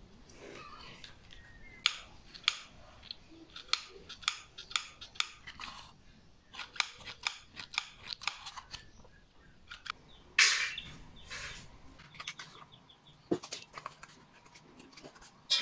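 Cardboard being cut and handled: a run of irregular sharp snips and clicks, with a longer scraping rasp about ten seconds in.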